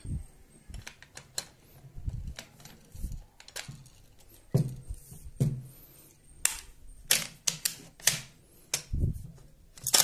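Metal clicks and clacks of an Impala Plus shotgun's barrel and receiver being handled and fitted together as the barrel is seated on the receiver. Irregular sharp clicks and knocks, louder and closer together in the second half.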